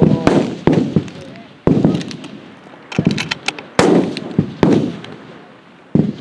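Rifle shots from F-Class target rifles on a firing line: about seven sharp reports spaced irregularly over six seconds, each trailing off in a fading tail.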